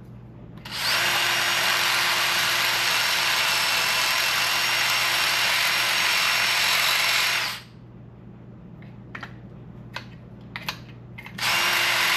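Power drill with a step bit running steadily for about seven seconds, cleaning up and chamfering the edge of a drilled hole in metal. A few light clicks follow, and the drill starts again near the end.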